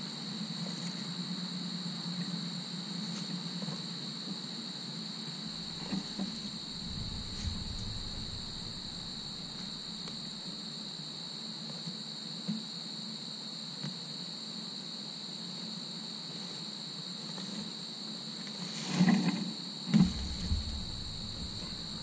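Steady, high-pitched chorus of insects with a low steady hum beneath. About three seconds before the end comes a cluster of heavy thumps and crackling as the wire-mesh potato tower is tipped over and its soil spills out.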